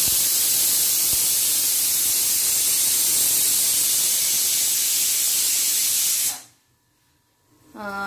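Pressure cooker whistle: steam blasting out past the weight valve on the lid as a loud, steady hiss, which stops abruptly about six seconds in. It is the single whistle that tells the cook the food is done under pressure.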